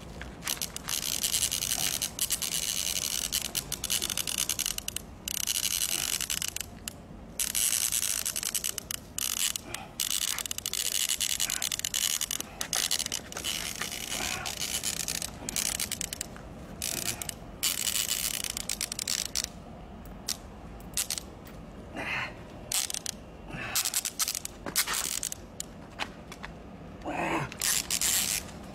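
Fishing reel whirring in stretches of a few seconds with short pauses between them. Two brief pitched calls or squeaks stand out, one about two-thirds of the way in and one near the end.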